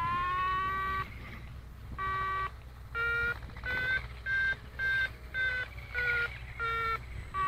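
Electronic variometer tones from a model glider's PitLab Sky Assistant telemetry: a steady tone, then a run of short beeps at a higher pitch, about two a second. The pitch shifts slightly from beep to beep. Quick, higher beeps are the usual vario signal for climbing in lift.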